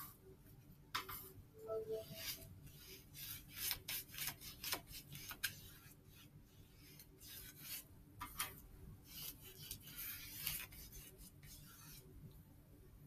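Faint scratchy swishes of a paintbrush rubbed across watercolor paper in short, irregular strokes, coming in quick clusters.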